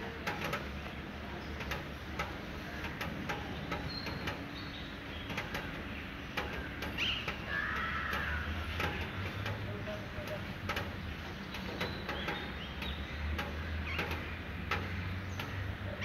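Scattered short calls of rose-ringed parakeets, a few seconds apart, over a steady low hum of city background.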